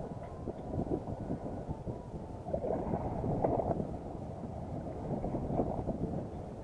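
Wind buffeting the camera microphone, a steady low rumble, over the wash of the open sea.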